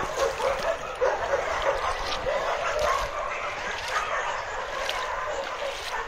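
Many dogs barking and yelping at once in a continuous chorus.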